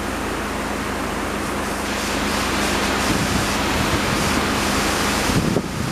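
A swollen river in flood rushing over rapids: a steady hiss of churning white water. Near the end, wind gusts buffet the microphone.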